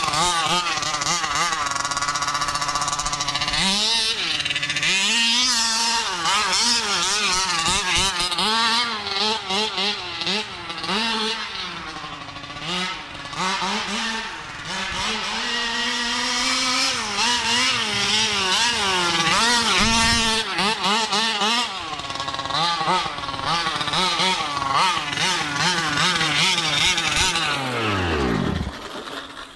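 Taylor 50cc two-stroke engine of a 1/5-scale Kraken Vekkta RC buggy running hard, its pitch swinging up and down with the throttle as the buggy is driven. Near the end the revs wind down steadily.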